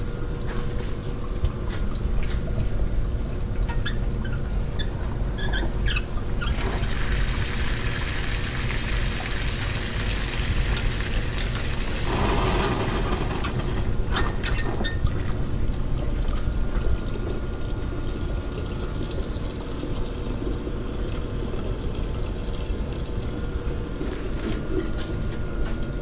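Steam boiler bottom blowdown: hot water and flashing steam rushing out of the blowdown valve and line as it is worked open and shut to flush sediment out of the fire-tube boiler. The rush swells into a louder hiss for several seconds in the middle, over a steady low rumble.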